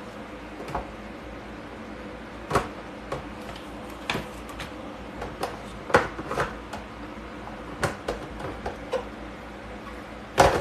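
Clear plastic steamer bowls of a Cozeemax electric food steamer knocking and clicking as they are lifted off and set back onto the base: a scatter of light knocks every second or two, the loudest near the end.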